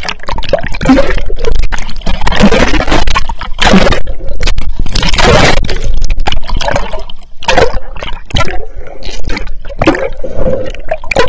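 Seawater sloshing and gurgling against a swimmer's action camera as it dips above and below the surface, with muffled underwater rushes of bubbles. Loudest in the first half, then breaking into separate splashes.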